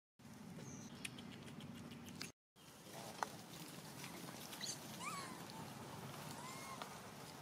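A few short, high monkey squeaks, each rising then falling in pitch, over a faint steady background; the sound cuts out briefly twice in the first few seconds.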